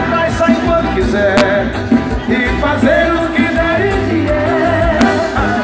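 Live forró band playing loudly on an outdoor stage, a singer's voice carried over bass, keyboards and drums, with sharp drum hits now and then.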